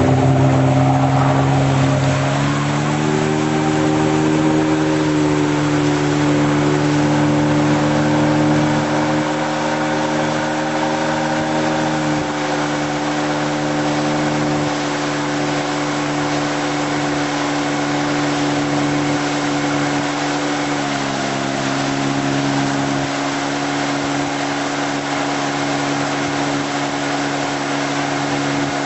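Tow boat's engine speeding up over the first two seconds as it pulls a hydrofoil rider out of the water, then running steadily at speed, its pitch dropping slightly twice. A steady hiss of water and wind runs beneath it.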